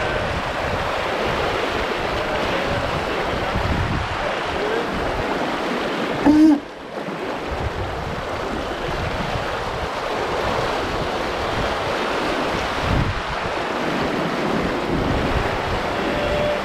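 Wind buffeting the microphone over the rush of water along the hull of a sailing yacht running under spinnaker. About six seconds in there is one brief, louder sound.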